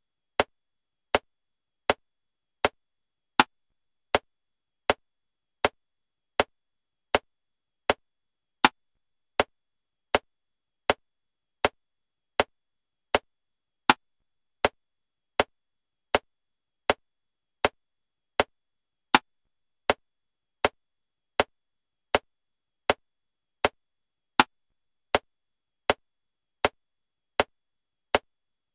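Metronome clicking steadily at 80 beats per minute in 7/4 time, a sharp click about every three-quarters of a second with a louder accented click on every seventh beat.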